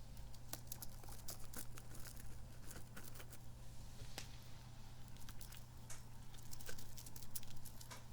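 Sticky, squishy kidney-bean toy squeezed and pulled apart close to the microphone, giving a dense run of irregular sticky crackles and squelching clicks.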